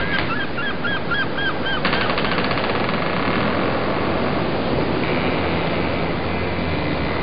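Boat running at sea, a steady rush of engine and water with a low hum underneath. Over it, a quick series of repeated arched calls in the first two seconds, then a rapid rattling pulse about two seconds in and a steady high whine near the end.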